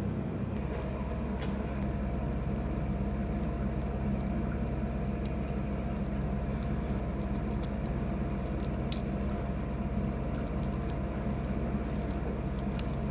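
Wooden chopsticks pressing and spreading minced raw saury over rice in a ceramic bowl, giving soft wet squishes and scattered light clicks against the bowl. A steady low hum lies underneath.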